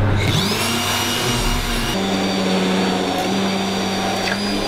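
Handheld immersion blender puréeing a simmered sauce in a stainless saucepan. Its motor starts with a rising whine about a quarter second in, then runs steadily, with a brief dip in pitch near the end.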